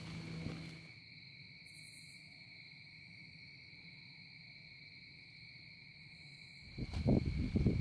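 Constant high-pitched insect buzzing, a steady drone at two pitches, from cicadas, crickets or similar insects in the woods. Near the end, loud irregular low rumbling comes in over it.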